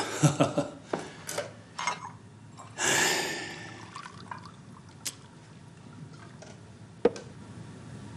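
Hot water poured into a bowl in a short rush about three seconds in, with a few light clinks and knocks of crockery before and after.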